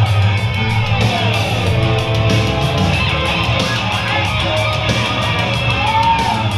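Loud background rock music with guitar and a steady drumbeat.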